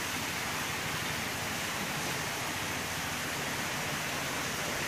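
Steady rushing noise of running water, such as the water flow or aeration in a fish holding tank.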